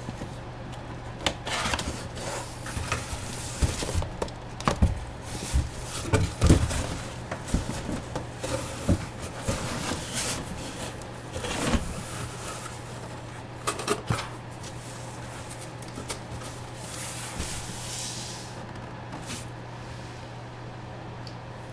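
Cardboard and plastic packaging being handled and opened, with irregular clicks, knocks and rubbing that are busiest in the first dozen seconds and then thin out. A steady low hum runs underneath.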